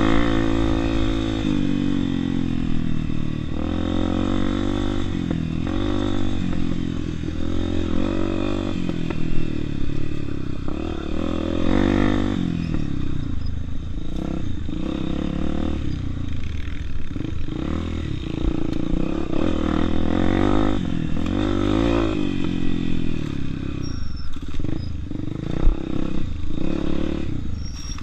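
Honda Tornado 250 single-cylinder four-stroke motorcycle engine being ridden, its revs rising and falling again and again through the gears and throttle changes, with occasional sharp clattering knocks.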